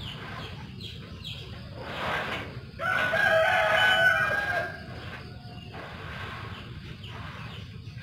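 A rooster crowing once, a loud drawn-out call of about two seconds near the middle, with shorter, fainter calls before it over a steady background hiss.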